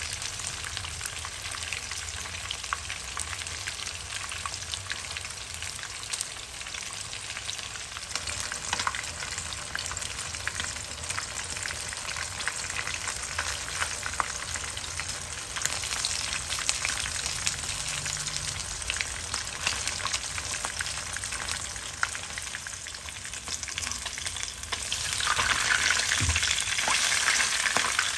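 Whole scored fish shallow-frying in hot oil in a nonstick pan: a steady sizzle full of small crackles and pops, which grows louder near the end.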